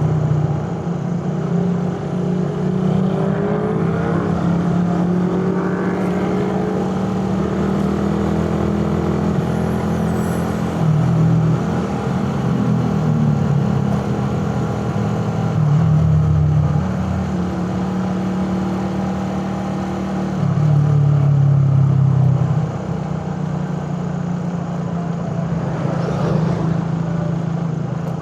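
Suzuki Raider 150 carburettor-model motorcycle engine running under way, its note rising and falling as the throttle is opened and eased. There are a few louder bursts of throttle, the longest about two-thirds of the way through.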